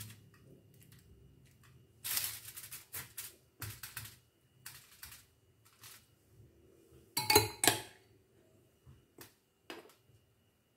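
Aluminium foil crinkling and tapping in short irregular bursts as hands handle marinated fish lying on it. A louder clatter with a brief ring comes about seven seconds in.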